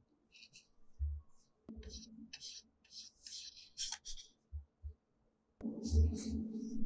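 Short, scratchy strokes of a paintbrush working gouache on a gesso-coated wood slice, with a few soft low thumps. Background music comes in near the end.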